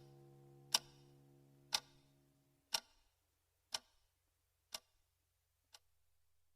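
Clock ticking once a second, each tick fainter than the last, over a held musical note that dies away about two and a half seconds in.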